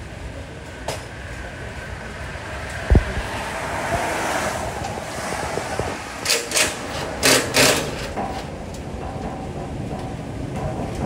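A heavy thump about three seconds in, then four short, harsh scraping or knocking noises in two quick pairs, over a steady rushing background noise.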